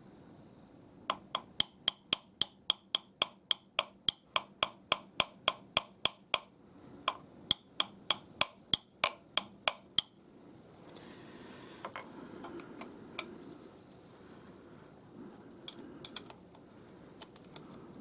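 A quick run of light, sharp knocking taps, about three a second for some nine seconds, as the work clamped on the mill is knocked sideways to nudge it back into alignment; a few scattered lighter clicks follow in the second half.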